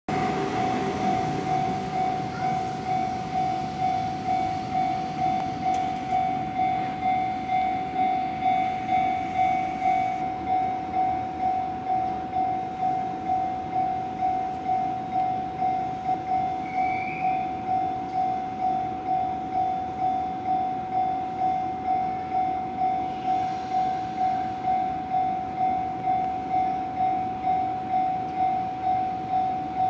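Railway level-crossing warning bell ringing steadily, about two dings a second. Underneath it a train runs past close by, loudest in the first few seconds.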